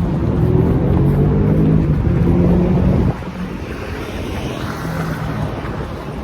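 Street traffic: a vehicle engine running loudly and rising in pitch as it accelerates, with wind on the microphone. It cuts off suddenly about three seconds in, leaving quieter, steady traffic noise.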